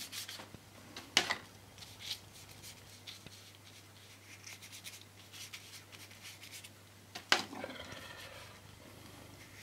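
A paintbrush scratching and rubbing across paper as paint is brushed on in short strokes, with two sharp clicks, one about a second in and one near the end, over a steady low hum.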